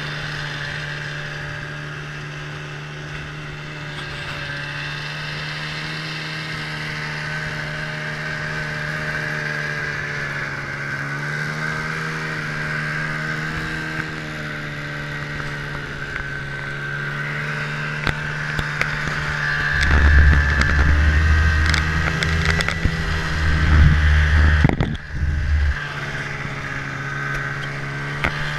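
Snowmobile engine running steadily at speed, its pitch wavering slightly as the throttle changes. About two thirds of the way in, a heavy low rumble starts coming and going over it.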